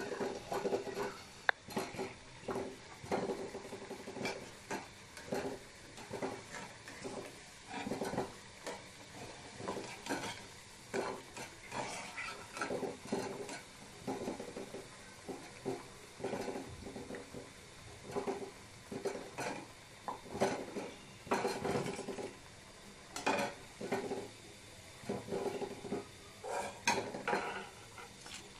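A metal slotted skimmer repeatedly scraping and clinking against the side of a wok while turning and lifting fritters, with hot oil sizzling underneath.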